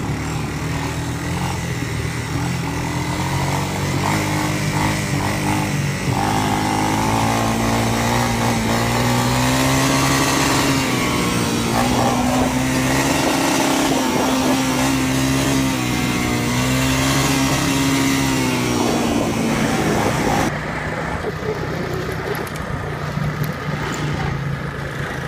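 ATV engine running as the quad is ridden along a dirt trail. Its note climbs about six seconds in, wavers while held higher, and drops back near twenty seconds in.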